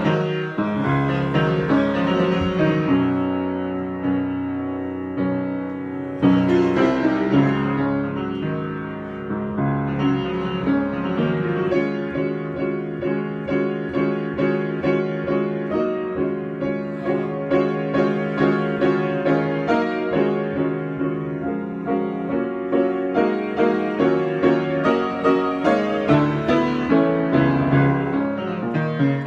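Solo piano improvisation. Held chords ring early on, a new loud chord is struck about six seconds in, and from about ten seconds in the playing settles into a steady pulse of repeated chords.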